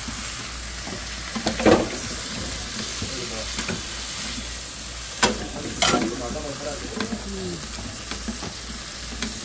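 Sliced eggplant sizzling as it is stir-fried in a frying pan, tossed with two wooden spatulas. The spatulas scrape and knock against the pan, most sharply about a second and a half in and twice around five to six seconds in.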